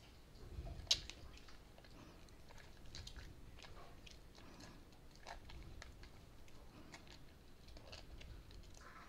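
Faint wet squishing and small clicks of soapy hands rubbing a small bar of homemade aloe vera soap into a lather, with one sharper click about a second in.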